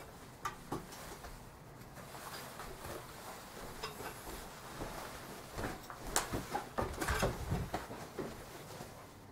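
Faint, scattered clicks, knocks and rustles of a person moving about a small room: getting up from a stool and handling equipment. The knocks are busiest between about five and a half and eight seconds in.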